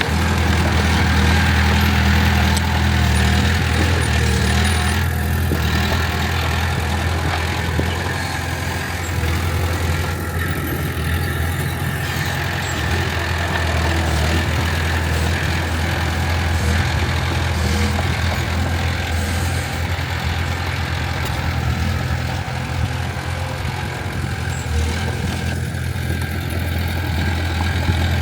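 Heavy diesel engine running steadily with a deep, even hum and little change in speed.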